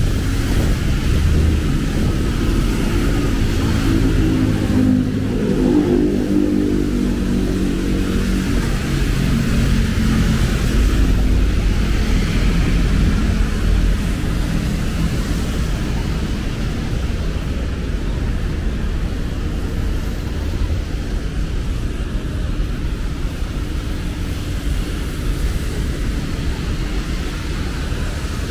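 Road traffic on rain-wet streets: a steady low rumble of passing vehicles, with one engine's hum swelling and changing pitch between about four and twelve seconds in.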